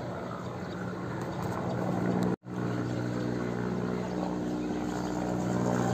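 Helicopter flying overhead: a steady drone of rotor and engine with a low hum, growing gradually louder. It drops out to silence for an instant about two and a half seconds in.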